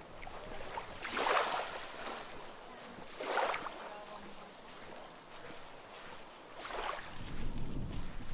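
Small sea waves washing onto the shore: three rushing surges of water a couple of seconds apart, each swelling and fading, with a low rumble near the end.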